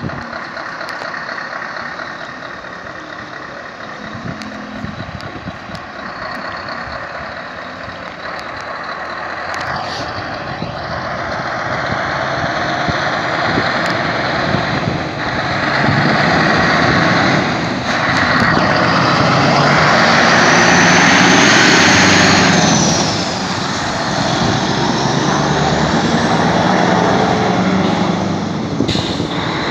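Scania heavy truck engine running as the truck pulls through at low speed. It grows louder as it comes close between about 16 and 23 seconds in, with a high whistle that rises and then falls near the loudest point.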